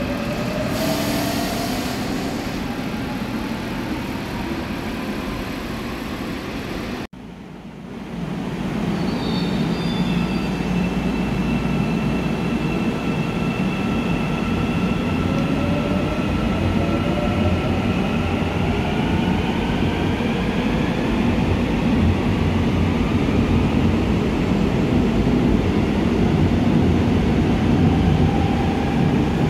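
Seoul Line 4 electric subway trains running through the station: the traction motors' inverter whine glides up in pitch as a train pulls away, over a steady rumble of wheels on rail. After an abrupt cut about 7 s in, the whine and rumble of another train take over, several tones sliding upward together and growing louder toward the end.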